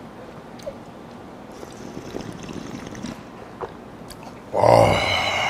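A man drinking cold squid mulhoe broth straight from the bowl: quiet sipping for the first few seconds, then a loud slurp lasting about a second near the end.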